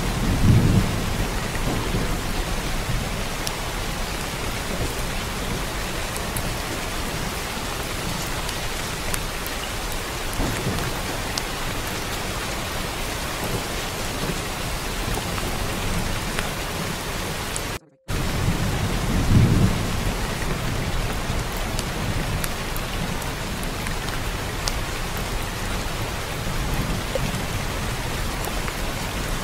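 Steady rain with low rumbles of thunder, one just after the start and another about 19 seconds in. The sound cuts out for a moment just before 18 seconds, like a looped track restarting.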